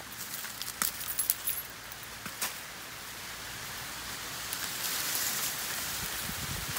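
Dry corn leaves and husks crackling and rustling underfoot while walking, with a few sharp crackles in the first couple of seconds and a louder, steadier rustle from about four and a half seconds on.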